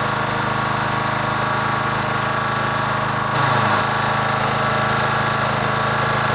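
Briggs and Stratton push-mower engine running steadily, with a brief rise in level a little past halfway.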